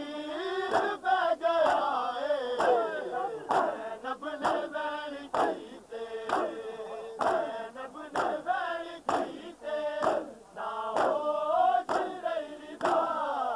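A crowd of men chanting a noha (Shia lament) in chorus, with matam: open hands slapping bare chests together, a sharp smack about once a second.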